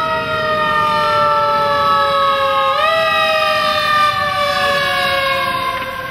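FDNY fire truck's siren sounding, its wailing tone slowly falling in pitch. About three seconds in it is pushed quickly back up, then falls again.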